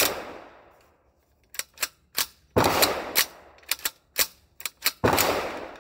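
The PTR 9CT's charging handle is cycled by hand: three loud metallic clacks with reverberation, at the start, about two and a half seconds in and about five seconds in, as the bolt slams forward. Lighter clicks come between them as the handle is pulled back and locked. The rifle is failing to strip and chamber a round from the magazine.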